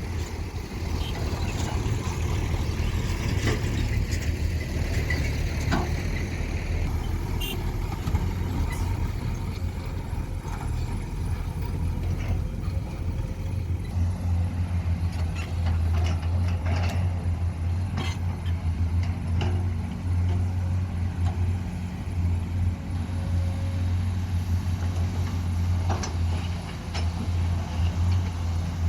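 Heavy diesel engine of a Komatsu PC210 hydraulic excavator running steadily under load while digging and loading a dump truck, its low drone growing stronger about halfway through. Scattered knocks and clanks sound over it.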